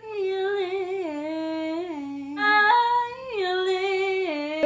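A woman singing a short tune unaccompanied: a sung word, then held notes stepping up and down in pitch, with short breaks between phrases.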